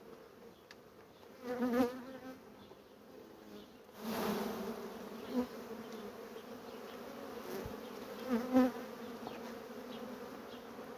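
Honeybees buzzing steadily over an open hive whose frames are being pulled, the colony stirred up. Twice, about two seconds in and again later, single bees pass close and hum louder, and a short rush of noise comes about four seconds in.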